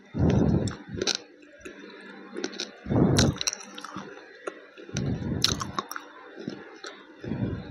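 Slate pencil being chewed up close: crunching bursts about every two seconds, with sharp snapping cracks as pieces break.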